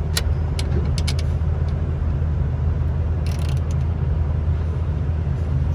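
Heavy diesel truck engine idling with a steady low rumble, with a few sharp clicks in the first couple of seconds and a short hiss about three and a half seconds in.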